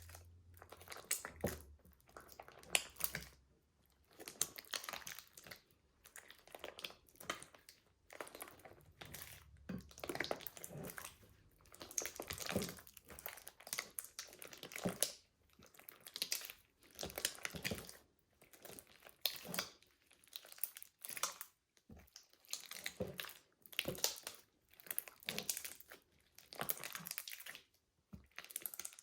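Slime being squished and kneaded by hand: sticky, crackling squelches that come in irregular bursts, about one a second.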